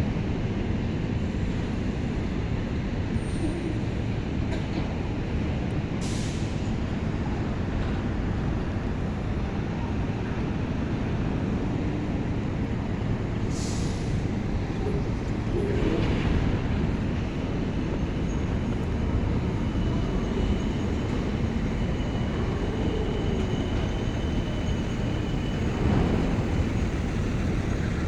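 Steady low rumble of a running vehicle or vessel engine, with a short hiss about six seconds in and another about fourteen seconds in.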